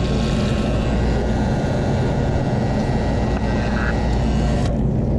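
Self-serve soda fountain pouring soda into a foam cup of ice: a steady rushing pour that stops about four and a half seconds in, over a steady low hum.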